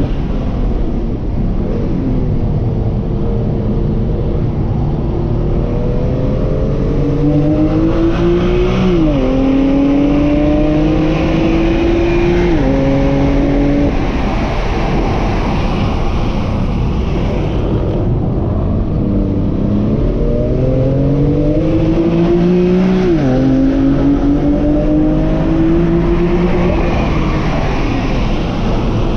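BMW M2 CS twin-turbo inline-six under hard acceleration on track, heard from inside the cabin. The revs climb and drop sharply at each upshift, several times, then fall away for a spell before climbing again. Steady tyre and wind noise runs underneath.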